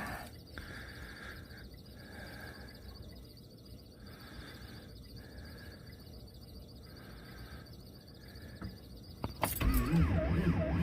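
Mostly quiet for about nine seconds during the glow-plug preheat, then the starter engages and cranks the Dodge pickup's diesel engine, its pitch wavering up and down as it turns over. The engine, badly cold-soaked at around minus 40 and not plugged in, is not catching.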